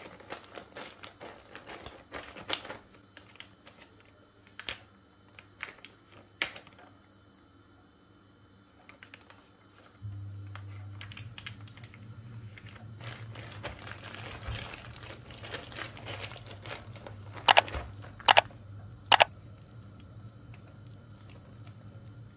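Plastic zip-lock freezer bag crinkling and rustling as hands knead dough through it. Three sharp loud snaps come near the end as the zipper seal is worked. A low steady hum comes in about halfway.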